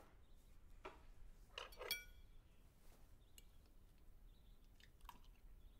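Near silence with a few faint clinks of tableware, the brightest a short ringing clink about two seconds in.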